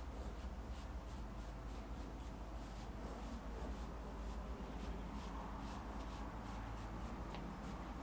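A comb drawn through short hair in repeated faint strokes, about two to three a second, as the hair is combed out for 360 waves.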